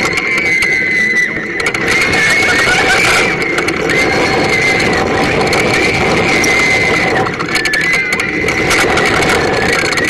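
Steel roller coaster train running fast through its course: loud rushing wind and rattling of the train on the track, with a high wavering squeal that comes and goes.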